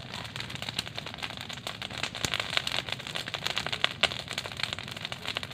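A heap of dry palm fronds catching fire and crackling, with rapid irregular pops and snaps as the flames take hold.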